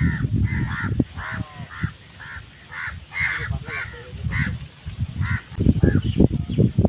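A crow cawing over and over, about two calls a second, falling off about five seconds in. Under it, wind rumbles on the microphone and grows stronger near the end.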